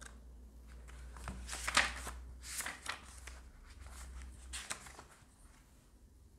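Paper pages of a paperback book being leafed through and handled: a series of soft, irregular papery rustles, the loudest about two seconds in and a last few near five seconds.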